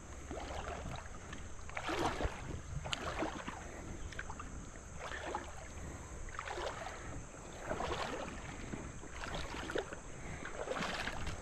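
Footsteps wading through shallow, stony river water: a slosh of water with each step, roughly one a second.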